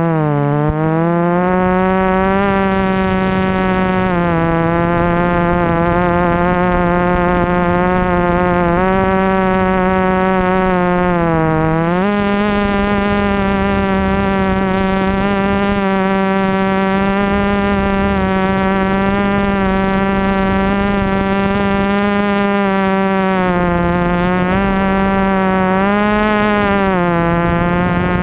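Multirotor drone's electric motors and propellers buzzing steadily, heard close up from the onboard camera. The pitch dips and recovers with throttle changes: briefly at the start, about four seconds in, most deeply about twelve seconds in, and in a few wobbles near the end.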